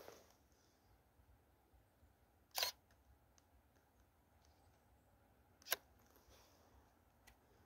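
Near silence broken by two sharp clicks about three seconds apart, the kind of click made by handling the camera.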